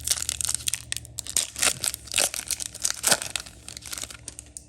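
Foil wrapper of a Pokémon booster pack crinkling and tearing as it is ripped open, a dense run of irregular crackles and snaps with two louder tears in the second half, dying away near the end.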